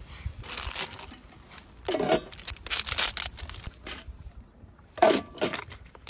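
Plastic food packaging being handled and torn open, crinkling and tearing in several irregular bursts.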